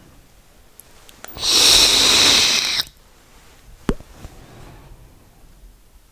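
A loud breath of e-cigarette vapour right at the microphone, a hiss lasting about a second and a half, followed a second later by a single sharp click.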